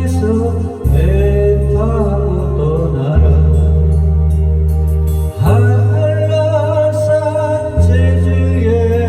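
Music from a Korean song: held bass notes that change every second or two under a wavering, vibrato-like melody line.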